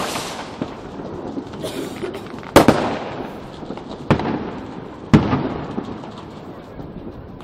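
Aerial fireworks bursting: three sharp bangs about a second apart, each trailing off in an echoing rumble, with fainter distant pops and crackles between them.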